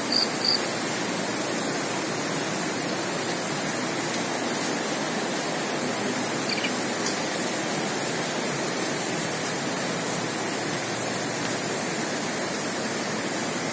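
Steady, even rush of water from heavy rain, with rainwater coming into the building.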